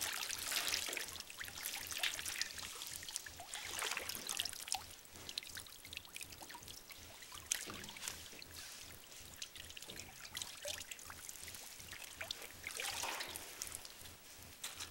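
Water splashing and trickling in a galvanized metal tub as a person in snowboard boots steps about in it. The splashes come in bursts, the largest near the start, about two and four seconds in, and again about thirteen seconds in as the boots step out of the tub.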